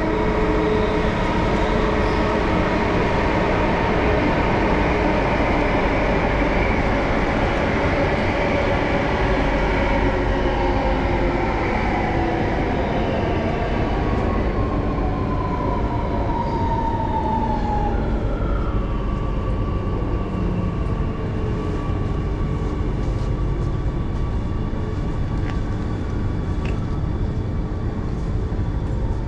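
Singapore MRT train heard from inside the carriage: a steady rumble of wheels on rail, with the electric drive's whine falling in pitch as the train slows into the next station.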